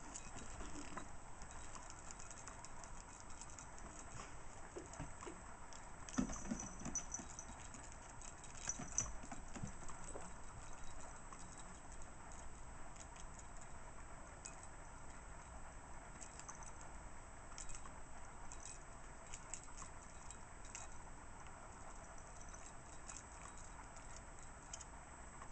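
Kittens batting at a feather wand toy and a hanging plastic cat ball with a bell inside: faint scattered taps, rustles and small rattles and jingles, with a couple of louder knocks about six and nine seconds in.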